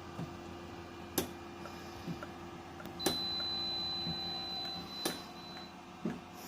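Cuisinart Grind & Brew coffee machine running, with a steady hum and sharp clicks. About three seconds in, a click starts a louder stretch of about two seconds with a thin high whine, which ends with another click.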